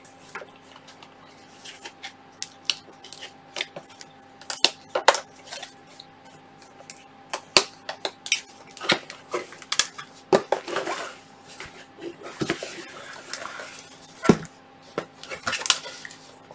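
Cardboard product box being handled and opened: irregular clicks, taps and knocks with short scrapes and rustles of cardboard.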